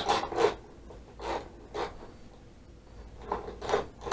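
Hand wrench working the motorcycle's windshield mounting bolts: a few short scraping, rasping strokes with a quiet gap in the middle.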